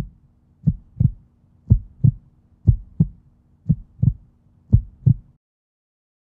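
Heartbeat sound effect: low double thumps, lub-dub, about one pair a second over a faint low hum, stopping about five seconds in.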